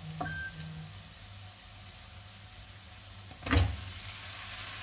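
Minced ginger and garlic sizzling gently in butter in a nonstick pan, with a light click near the start. About three and a half seconds in, a loud short thud as a bowl of chopped onions is tipped into the pan.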